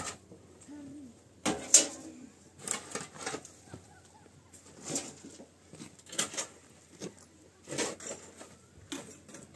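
Shovel blade scraping and scooping dirt and rubble off a concrete floor: a series of sharp scrapes, roughly one every second.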